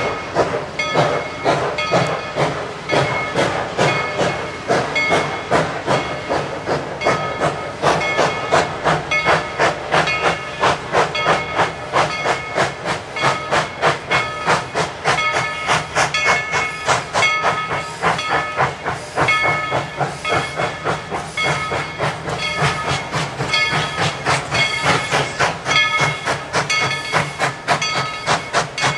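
Tweetsie Railroad's narrow-gauge steam locomotive No. 190 working, its exhaust chuffing in a steady rhythm of about two to three beats a second over a hiss of steam.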